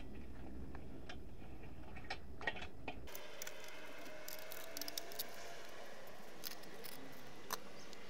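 A few faint metal clicks and taps from a wrench and gloved hands loosening the wing-nut clamps on a stainless steel reactor lid, the sharpest click near the end.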